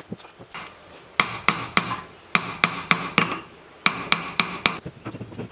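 Claw hammer tapping an electric motor's end cover down onto the rotor and its shaft bearing. There are about eleven sharp, ringing metal taps in three quick runs of three or four, then a few lighter taps near the end.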